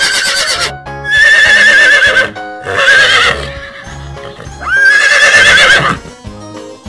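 Horse whinnying again and again: four neighs of about a second each with a wavering pitch, the first trailing off about half a second in and the others starting about a second, three seconds and five seconds in, over light background music.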